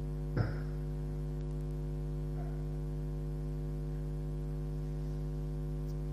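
Steady electrical mains hum with a stack of even overtones, with one short blip about half a second in.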